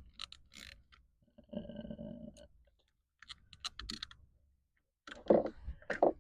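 A 10 mm socket ratchet clicking in short runs as a seat-belt anchor bolt is tightened, with a few louder knocks about five seconds in.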